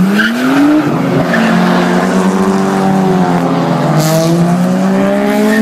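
Car engine revving hard, its pitch climbing in the first second and then held high, over tyres skidding and squealing on the road: a car spinning its wheels in a burnout, with tyre smoke in the air.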